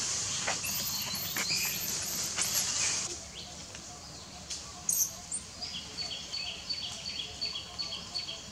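High-pitched animal calls: quick squeaky calls, two or three a second, for the first three seconds, then a steady series of short chirps repeating about three times a second through the second half.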